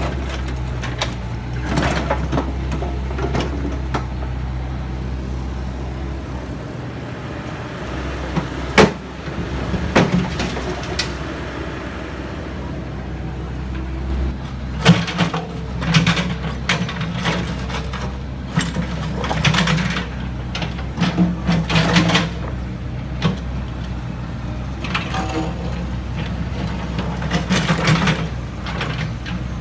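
Heavy construction machinery at work: a diesel engine running steadily, with repeated sharp metallic clanks and knocks, most frequent in the second half.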